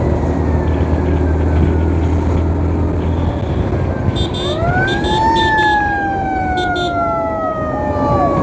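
Emergency vehicle siren wailing in traffic. About four seconds in, a tone rises quickly and then falls slowly. Near the end a second siren pattern starts cycling up and down. Underneath runs the steady drone of a motorcycle engine and road noise.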